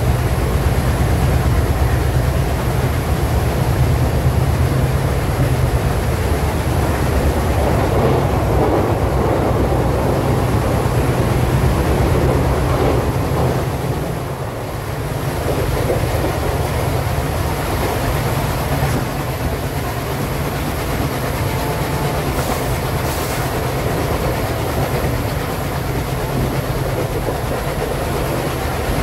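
Twin ALCo WDG-3A diesel locomotives, each with a 16-cylinder ALCo 251 engine, chugging steadily with a deep throb, mixed with the clatter of wheels on rail. The sound echoes inside a tunnel at first, dips briefly about 14 seconds in as the train leaves it, and then runs on a little quieter in the open.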